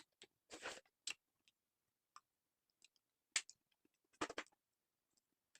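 Faint, scattered clicks and ticks of someone eating ice cream, with a sharper click about three and a half seconds in and a short cluster just after four seconds, and near quiet in between.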